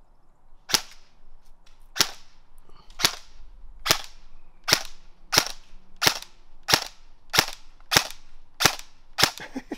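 Battery-powered BCM airsoft rifle firing single shots, about a dozen sharp cracks. They start about a second apart and quicken to well under a second apart toward the end.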